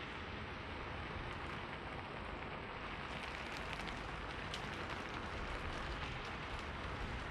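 Steady rain falling, with scattered sharp drops ticking on a hard surface from about three seconds in.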